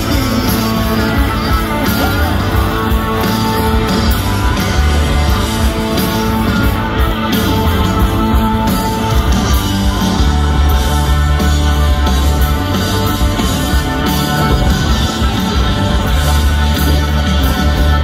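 Live rock band playing loudly: electric guitars over a heavy bass and drums.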